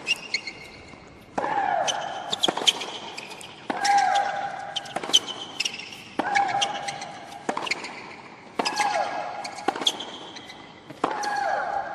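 Tennis rally: racket strikes on the ball about every second and a bit, back and forth across the court. Five times, Maria Sharapova's long, falling shriek comes with her stroke.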